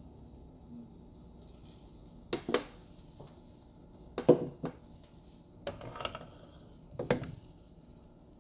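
A few short knocks and clatters of kitchen things being handled: a glass batter jug and wooden spatula put down, with a brief scraping rustle, and a last knock near the end as the waffle maker's lid is closed. The knocks come as a quick pair about two seconds in, a pair about four seconds in, then one near the end.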